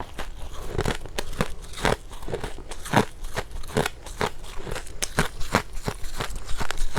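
Close-miked crunching of powdery freezer frost being bitten and chewed, a dense irregular run of crisp crunches, several a second.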